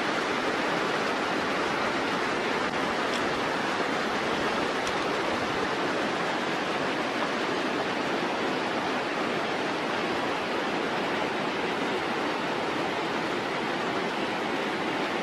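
Fast meltwater mountain stream rushing over rocks: a steady, even rush of water.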